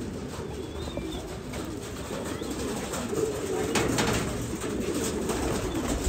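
Many domestic pigeons cooing, their low calls overlapping. A couple of sharp wing flaps come about three to four seconds in.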